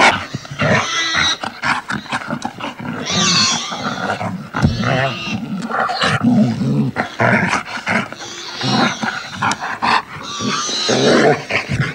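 A dog snarling and growling in a fight with another animal, in ragged, irregular bursts.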